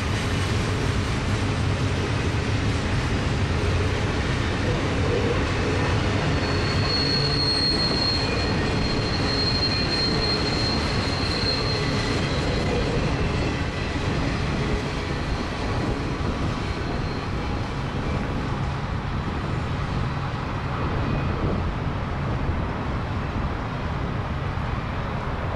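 BNSF double-stack intermodal freight train rolling past, its cars rumbling steadily over the rails. A high, steady wheel squeal runs from about a quarter of the way in to about halfway. The rumble eases a little after that as the last cars go by.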